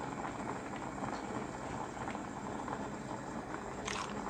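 Steady bubbling and hiss of a pot of fish soup boiling hard on the stove. A light knock comes near the end.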